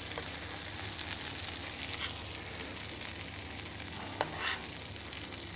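Skin-on hapuku fillets frying in melted butter in a hot pan, a steady sizzle as the butter mixes with the fat from under the fish skin. A metal spoon basting the fish gives a few light taps against the pan.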